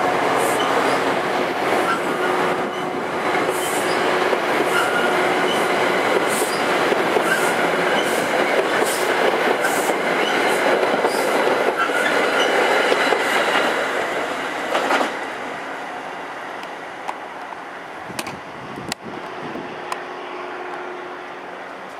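NJ Transit commuter train's passenger coaches rolling past at close range: a steady rumble of wheels on rail with scattered clicks over the rail joints. The sound drops away sharply about fifteen seconds in, leaving a much quieter background with a couple of sharp clicks.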